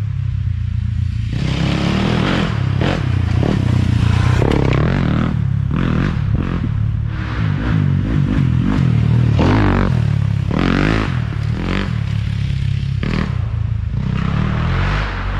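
Dirt bike engine running and revving up and down while riding single track, with repeated short bursts of scraping and clatter.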